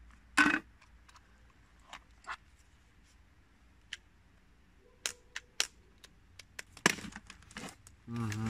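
Clicks and knocks of a plastic case being handled and opened, and an electric shaver being lifted out of it, with a sharper knock about half a second in. A short voice sound comes near the end.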